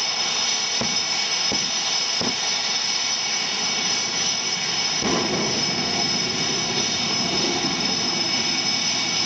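CF-18 Hornet fighter's twin General Electric F404 turbofans idling while it waits to taxi: a steady high-pitched whine over a constant rush. A few low thumps come in the first couple of seconds, and the lower rush grows fuller about halfway through.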